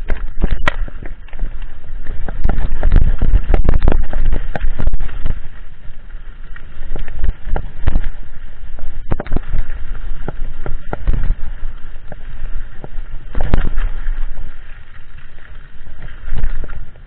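Mountain bike riding fast down a rough dirt trail: continual rattling and knocking of the bike over bumps and roots, with tyre noise and a heavy rumble of wind on the microphone.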